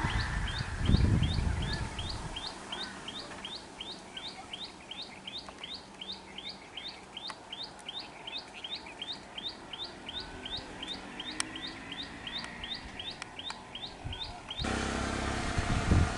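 A bird calling over and over, about three short high chirps a second, with low rumbling gusts in the first couple of seconds. Near the end the chirping cuts off abruptly and louder wind noise and rustling take over.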